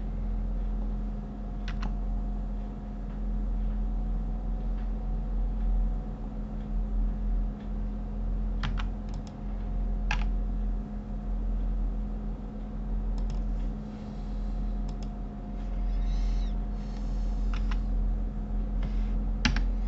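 Scattered computer keyboard and mouse clicks, a handful of sharp taps several seconds apart, over a steady low electrical hum.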